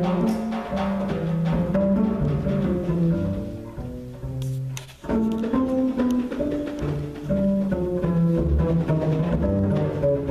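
Live small-group jazz with a plucked double bass prominent under the other instruments. The music thins out and briefly drops away about halfway through, then comes back in full.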